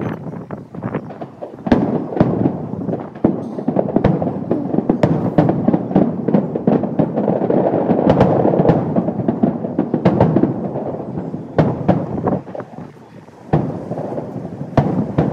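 Aerial firework shells bursting in quick succession: sharp bangs over a continuous rumble and crackle, densest about halfway through. The barrage thins briefly near the end, then one more sharp bang.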